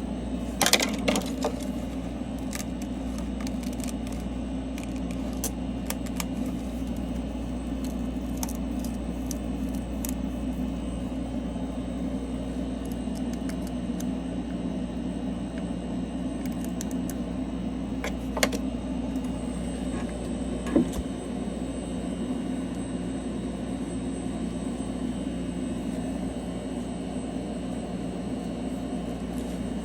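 Steady low machine hum, with a few light clicks and taps about a second in and again near eighteen and twenty-one seconds.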